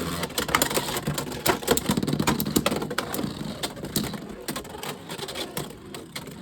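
Two Beyblade X spinning tops whirring and clattering against each other and the stadium in rapid clicks and rattles, which thin out and grow quieter toward the end.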